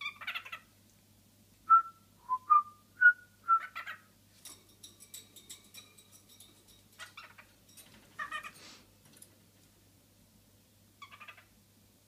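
Cockatiel whistling: a run of five short, clear notes about two seconds in, among brief scratchy chirps. A quieter fast, even rattle follows in the middle.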